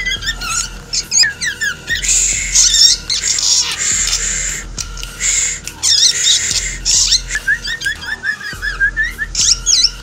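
Caged black drongo calling in a mimicking song: fast runs of high chirps and whistled glides, broken several times by harsh, rasping squawks.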